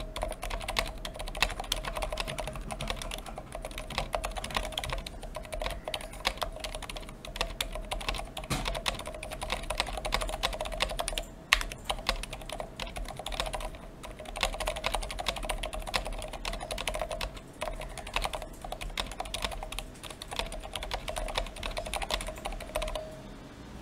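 Continuous fast typing on a NINJA87 Alu XO aluminium tenkeyless mechanical keyboard fitted with stock, unlubed Healios v2 silent linear switches and stock hybrid stabilizers. The keystrokes stop just before the end.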